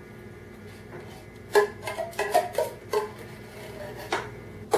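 A spoon scraping and knocking against the inside of a tin can as cherry pie filling is scooped out: a quick run of clinks with a short metallic ring from about a second and a half in, then two single knocks near the end.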